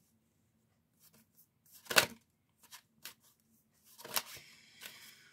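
Tarot cards being handled: a few light clicks, one sharp tap about two seconds in, and a short flurry of card rustling and tapping about four seconds in.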